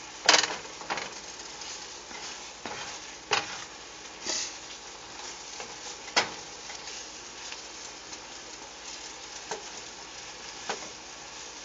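Asparagus sizzling in a garlic sauce in a steel skillet, a steady frying hiss. A spatula stirring it clacks and scrapes against the pan several times, loudest near the start and about six seconds in.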